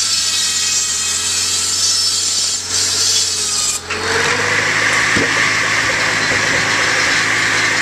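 Buzz saw on a Farmall Cub tractor's power take-off cutting through a thick wooden beam, a loud rasping rip over the steady hum of the tractor's four-cylinder engine. About four seconds in the first cut finishes, the blade picks up speed with a brief rising whine, and it bites into the wood again.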